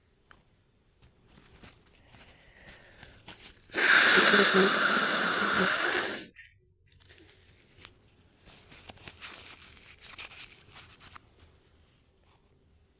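A woman sneezing: one loud, breathy burst with some voice in it, lasting about two and a half seconds and cutting off sharply, followed by softer breathing.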